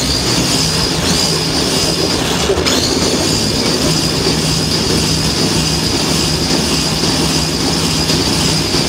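Small electric motor and plastic gearbox of a battery-powered RC toy kart whining steadily as the kart drives across a tabletop, a high-pitched whine over a running mechanical noise.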